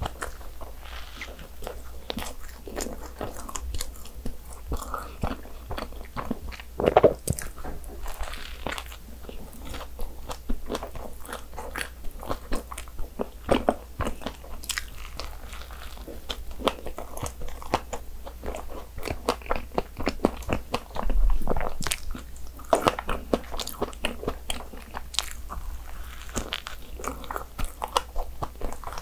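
Biting and chewing a fresh-strawberry mocha bun filled with cream and strawberries: a steady run of small crunches and mouth clicks, with louder bites about seven seconds in and again around twenty-one seconds.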